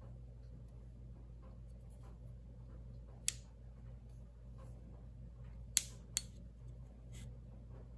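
Troy folding backup iron sight being worked by hand: a few sharp metallic clicks as it drops into its detent groove and locks, two of them close together about three-quarters of the way in, with faint handling rubs between.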